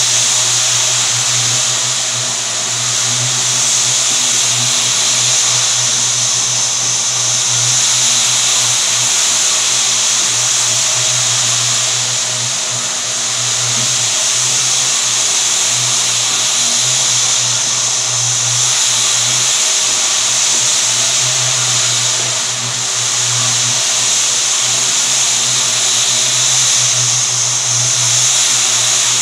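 Single-disc rotary floor buffer running steadily on a bare wood floor: a constant electric-motor hum under a hissing scrub of the pad on the wood, dipping slightly now and then as it is swung.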